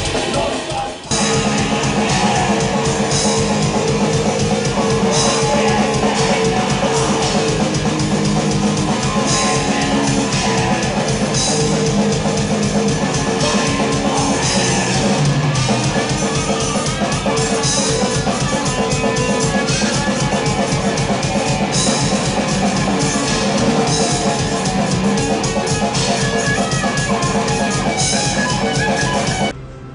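Heavy metal played on distorted guitars and a drum kit, with fast, dense drumming. There is a short break about a second in, and the music cuts off suddenly near the end.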